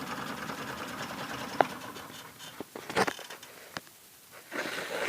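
Small motor of a homemade bitterleaf washing machine running steadily while its washing chamber churns the leaves, fading out after about two seconds. A few sharp clicks and knocks follow.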